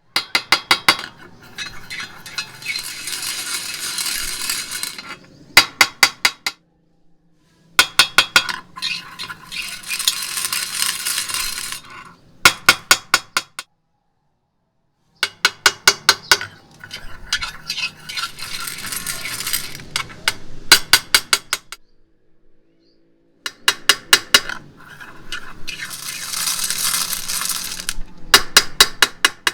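Crunchy slime being pressed and squeezed by hand, crackling and popping. There are four bursts, each a quick run of sharp clicks, then a few seconds of crackling, then more clicks, with short silent gaps between.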